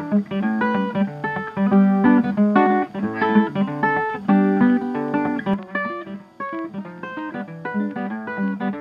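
Background music of acoustic guitar: a quick run of plucked notes.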